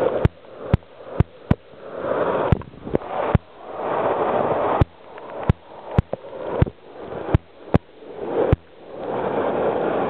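Waterfall water rushing and splashing right at the microphone, swelling and fading as the camera moves in and out of the spray, with water spattering onto the camera in frequent sharp clicks.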